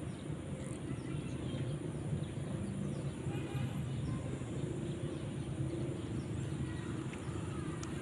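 A steady low engine drone, with a few faint bird chirps over it.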